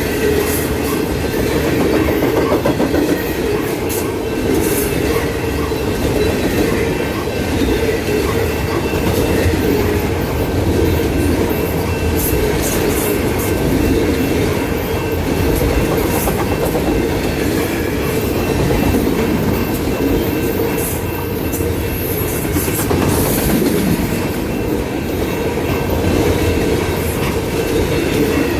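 Freight cars of a long freight train rolling past: a steady rumble of steel wheels on the rail with scattered clicks, and faint steady squealing tones above it.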